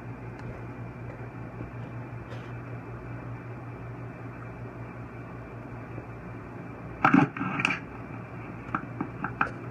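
Steady low hum and hiss. About seven seconds in comes a loud burst of rustling and knocking from the angler's body-mounted camera and fishing gear as he swings round. A few sharp clicks come near the end.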